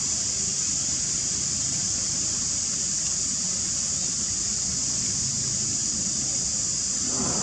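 Steady, high-pitched insect drone with a low rumble underneath, and a short sound just before the end.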